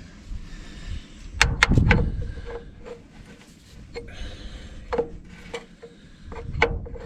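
Handling of hard objects: a quick run of sharp clanks with a heavy thump about a second and a half in, then single knocks about five seconds in and near the end.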